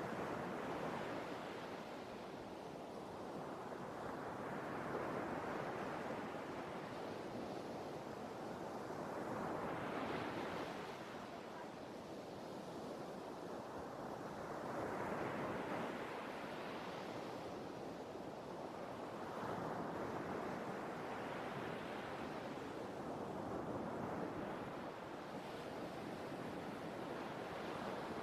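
Sea waves breaking and washing in, the surf swelling and ebbing about every five seconds.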